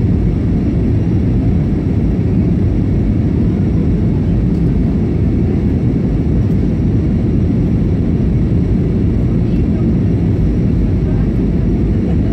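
Steady cabin noise inside an Airbus A320 in flight: the jet engines and the rush of air over the fuselage, a low, even rumble.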